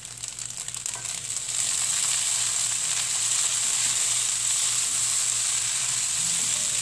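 Fried rice and shredded cabbage sizzling in a hot wok as they are stir-fried and tossed with a spatula. A steady frying hiss, softer with a few light ticks for about the first second and a half, then even.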